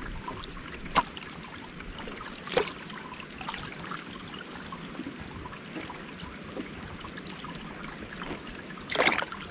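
Water washing and trickling along the hull of a moving canoe, a steady splashing hiss, with a few brief sharper knocks or splashes, about one and two and a half seconds in and near the end.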